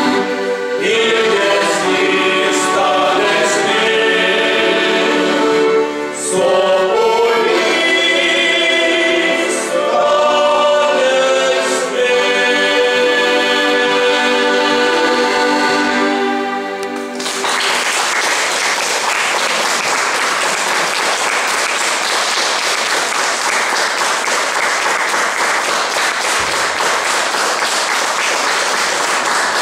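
Men's vocal ensemble singing a song in several-part harmony, closing on a long held chord. A little past halfway the singing stops and the audience applauds.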